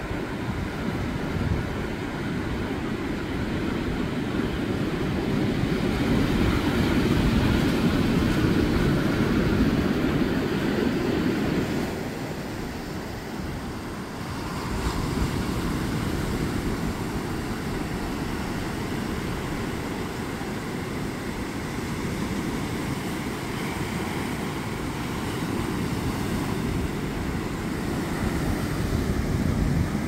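Ocean surf breaking and washing up a sandy beach, with wind rumbling on the microphone. The rush grows louder for several seconds, then eases off.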